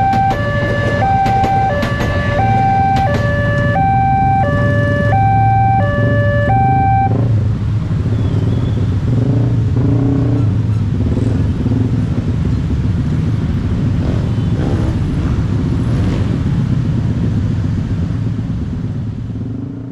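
Level-crossing warning alarm sounding an alternating two-note tone over the low rumble of a passing train. The alarm stops about seven seconds in, leaving the steady running of many motorcycle engines crossing the tracks.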